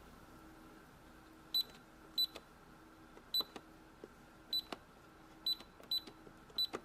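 Peppa Pig toy cash register beeping as its buttons are pressed: about seven short, high-pitched electronic beeps at uneven intervals, each with a faint button click.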